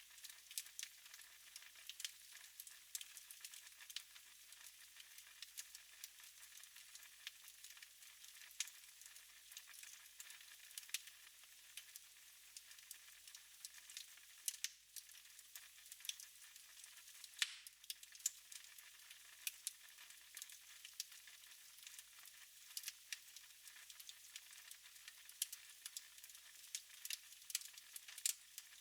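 Wood fire crackling in a fireplace: a faint steady hiss with frequent, irregular sharp pops and snaps.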